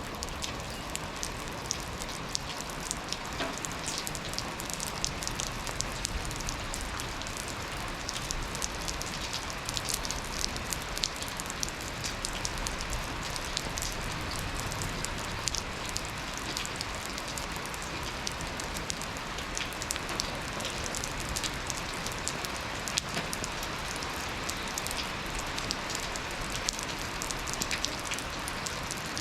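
Steady rain falling in a yard, with many individual drops ticking sharply over the even hiss of the shower.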